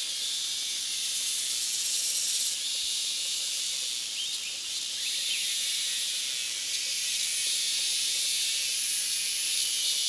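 Cicadas calling together in a continuous high-pitched, chainsaw-like buzz that swells and eases slightly.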